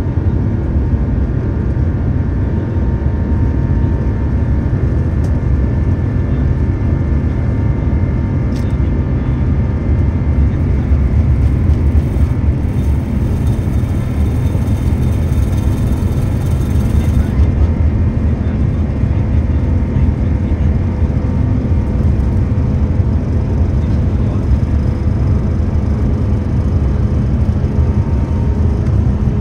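The Airbus A350-900's Rolls-Royce Trent XWB turbofans at takeoff thrust during the takeoff roll, heard from inside the cabin. A loud, steady low rumble with steady engine tones running over it.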